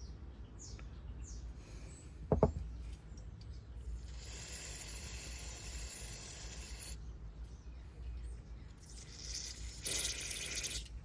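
Spray hissing into a small-engine carburetor's inlet-needle passage to clear it before reassembly: one hiss of about three seconds, then a shorter, louder one near the end. A brief sharp squeak about two seconds in.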